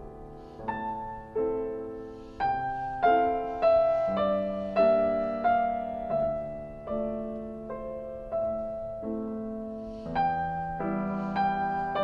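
Slow, gentle piano music: single notes and chords struck one after another, roughly once a second, each ringing and fading away.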